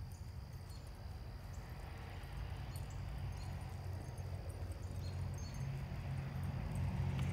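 Outdoor ambience: a low rumble that swells steadily louder, with a few faint high ticks.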